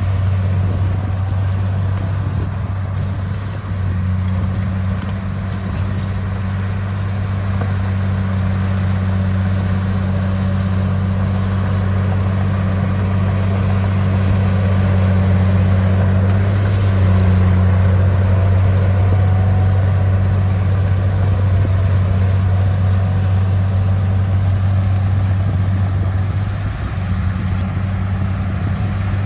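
A bulldozer's diesel engine running steadily, a deep continuous drone that swells slightly in level now and then.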